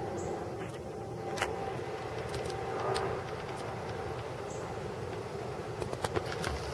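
Gulfstream-built U.S. Air Force C-20 twin jet passing low overhead on approach: a steady rush of jet engine noise with a high whistle that fades about a second and a half in. A few sharp clicks sound through it.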